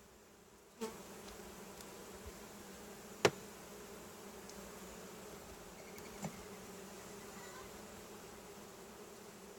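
Honeybees buzzing around an open hive: a steady hum that grows louder about a second in. Three short sharp knocks cut through it, the loudest about three seconds in.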